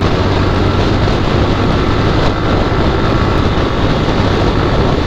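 Single-cylinder Suzuki Gixxer motorcycle engine running at a steady cruise, a low steady drone under loud wind rush on the microphone.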